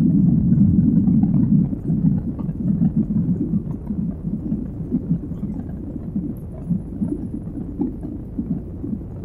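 Cabin roar of a Boeing 737's jet engines and rushing air during the climb after takeoff, a steady low rumble. It drops in level about two seconds in and keeps easing after that.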